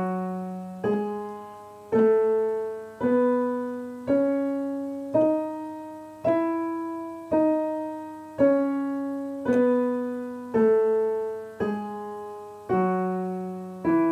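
Piano playing the E major scale with both hands together, slowly at about one note a second, each note struck and left to ring. The notes step up one octave, then come back down.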